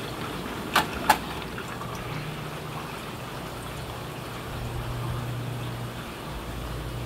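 Steady fish-room background of aquarium water running and a low hum of pumps, with two sharp clicks about a second in.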